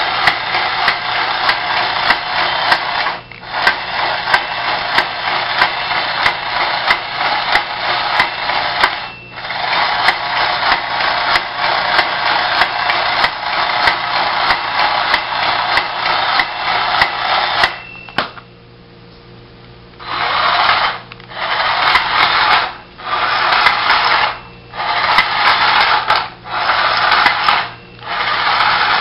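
Small electric motor and gears of a 1960s–70s Lincoln International battery-operated toy snorkel fire engine whirring as the toy drives. It stops briefly about 3 and 9 seconds in and pauses for a couple of seconds about 18 seconds in. After that it runs in short stop-and-start spurts of about a second each as it is driven back and forth.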